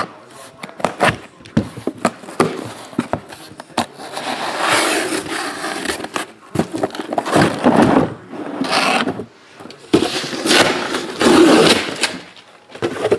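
A cardboard shipping case being opened and sealed hobby boxes of trading cards slid out and set down. Cardboard scrapes and rustles, with a few sharp taps early on and longer scraping stretches from about four seconds in.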